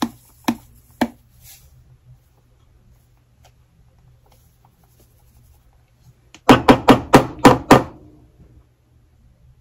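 Sharp kitchen knocks: three taps about half a second apart as a measuring cup is knocked against a plastic sugar jar to shake sugar back in, then a quick run of six louder knocks about six and a half seconds in.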